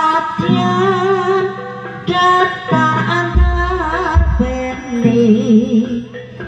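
Jaranan music: a singer's wavering, ornamented melody over sustained instrumental tones, with deep low booming notes about halfway through.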